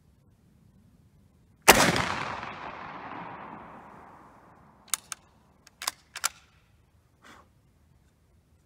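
Mle 1866 Chassepot needle-fire rifle firing a handmade black-powder paper cartridge: one loud shot about two seconds in, its echo rolling away over some three seconds. About three seconds after the shot comes a quick run of sharp metallic clicks as the bolt is worked, the action getting fouled.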